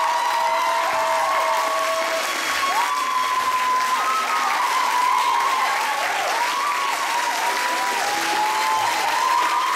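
Audience applauding with steady, dense clapping, with a melody of rising and falling tones running over it.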